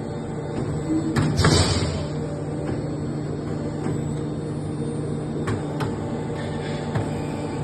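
CNC pipe bending machine running with a steady hum. About a second in come a couple of sharp knocks and a short hiss of air, and a few sharp clicks follow later.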